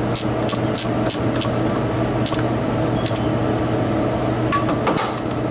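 Ratchet wrench clicking in short runs as the mounting bolts of an old Tecumseh refrigeration compressor are loosened, light metallic clicks several a second at first, then a few more near the end, over a steady background hum.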